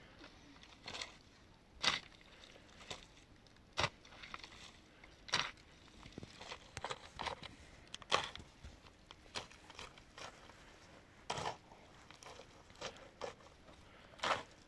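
Irregular short knocks and scuffs, one every second or so, a few much louder than the rest.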